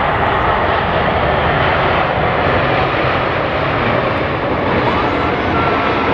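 Loud, steady rushing jet noise from a landing Boeing 787-8's Rolls-Royce Trent 1000 turbofan engines.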